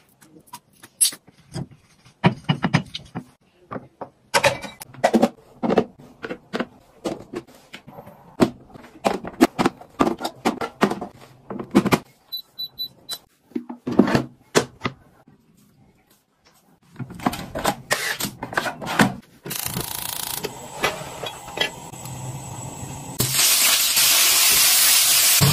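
Kitchen handling sounds: a quick run of clicks and knocks from utensils and containers, then a steady hiss that grows much louder near the end as food sizzles in a hot wok on a gas stove.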